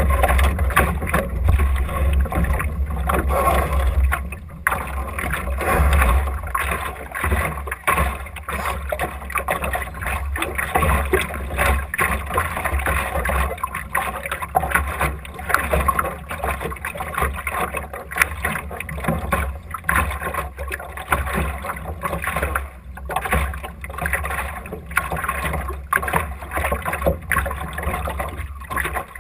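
Water rushing and slapping against the hull of an Optimist sailing dinghy under way. Wind adds a steady low rumble on the microphone.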